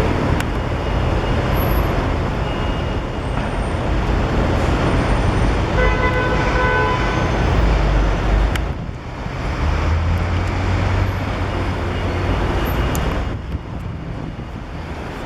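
Busy road traffic running past, with a vehicle horn sounding once for about a second, about six seconds in.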